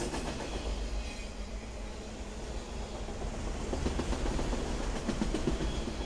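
Freight train of autorack cars rolling past at speed: a steady low rumble of steel wheels on the rails, with clickety-clack as the wheels cross rail joints.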